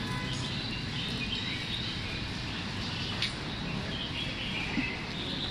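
Many small birds chirping together in the street trees over steady low background noise, with one sharp click about three seconds in.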